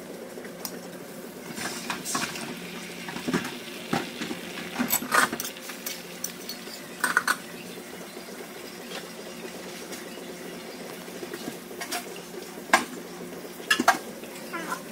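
Scattered clinks and clatters of metal utensils and containers at a toast-shop griddle, over a steady kitchen hum and a light sizzle of butter on the flat-top griddle.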